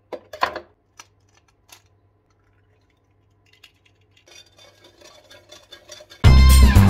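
An egg shell is cracked with a few sharp taps against a knife, in the first second and a half. About four seconds in comes faint, quick clinking and scraping of stirring in a stainless steel saucepan. Background music with a steady beat comes in loudly just before the end.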